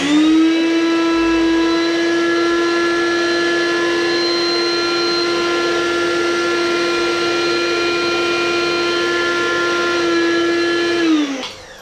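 Personal bullet-style blender's motor running at full speed, grinding digestive biscuits into crumbs. It spins up at the start, holds a steady whine for about eleven seconds, and winds down near the end.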